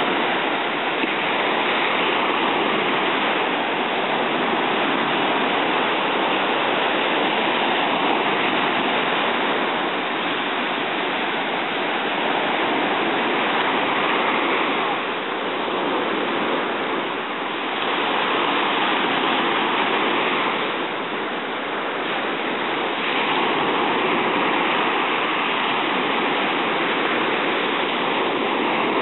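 Surf breaking and washing up the sand: a steady rush of waves that eases briefly a couple of times and swells again.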